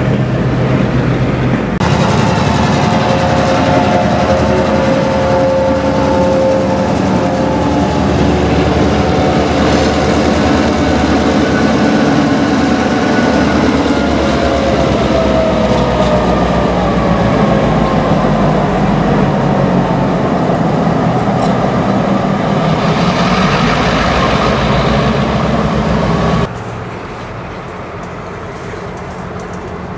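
EMD GP9 diesel road-switcher (SRY 106) with its 567 engine passing at close range, heavy mechanical running with wheels on rail and several high steady tones that slowly fall in pitch. Near the end it drops to a quieter, more distant rumble as the locomotive approaches on curved track.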